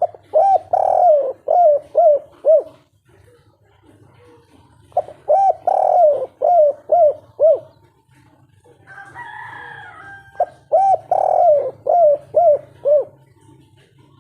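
Spotted dove cooing its 'kuk 3' song. Three phrases come about five seconds apart, each a run of coos ending in three short notes. Just before the third phrase there is a brief higher, rougher call.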